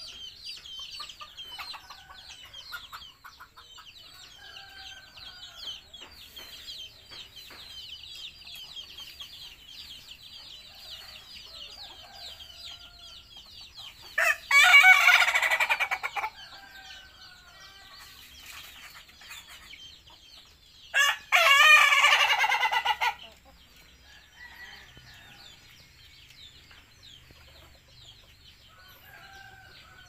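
A rooster crowing twice, each crow about two seconds long, the second a little after the middle. A dense high chirping runs faintly in the background through the first half.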